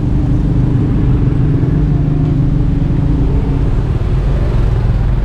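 City street traffic: car and motorcycle engines idling close by, a steady low hum.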